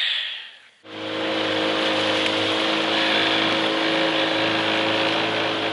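Motorboat's outboard motor running steadily at cruising speed, with a loud rush of water and wind along the hull. It starts suddenly a little under a second in.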